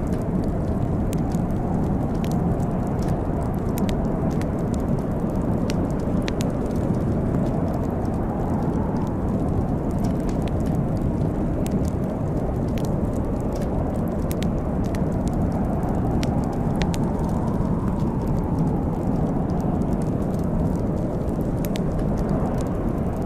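Wood fire burning in a fireplace: a steady low rumble with many sharp crackles and pops scattered irregularly through it.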